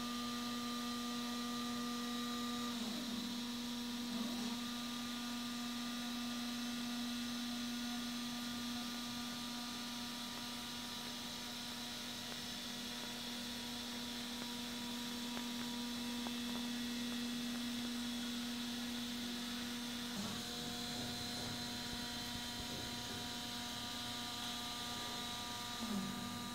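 iOptron CEM26 equatorial mount's motors whining steadily as it slews the telescope under hand-controller command, the pitch shifting briefly a few times (about 3 and 4 seconds in, about 20 seconds in and near the end) as the motion changes. The mount is slewing smoothly under the telescope's load.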